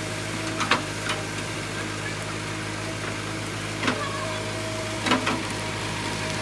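JCB 3CX backhoe loader's diesel engine running steadily, with several short, sharp knocks, one about half a second in, another near one second, one near four seconds and a pair around five seconds.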